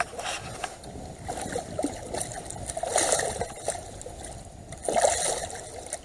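Water splashing and sloshing at the side of a boat as a large catfish is held in the water by its lip, with louder splashes about three and five seconds in.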